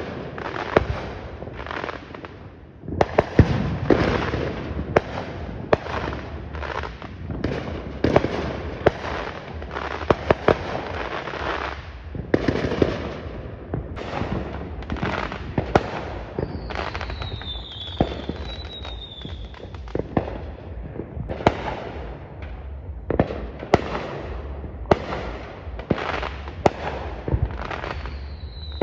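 Fireworks going off: many sharp bangs and booms at irregular intervals over a steady crackling rumble, with a couple of high whistles falling in pitch about two-thirds of the way through.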